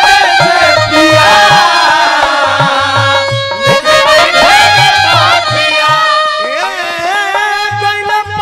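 Bhojpuri dugola folk music in an instrumental passage: a melody with sliding, wavering notes over a steady drum beat.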